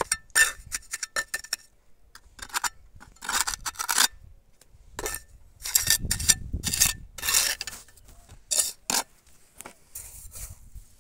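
Steel mason's trowel scraping mortar off concrete blocks: several bursts of short, quick scrapes.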